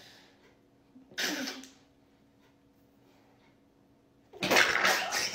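A short, hard puff of breath about a second in, then quiet, then a loud outburst of laughter breaking out near the end.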